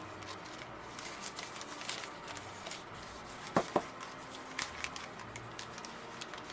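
Paper wrapping crinkling and tearing in small scattered crackles as a wrapped soap bar is handled and unwrapped, with two sharp clicks close together about halfway through.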